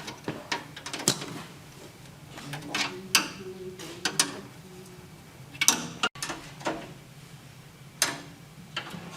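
Hand tools and metal engine parts clinking and knocking during engine repair work, with irregular sharp clicks and a few brief metallic rings.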